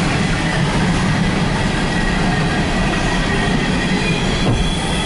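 Empty coal train's cars rolling past, a steady loud rumble of steel wheels on the rails, with a faint thin high squeal of the wheels running over it.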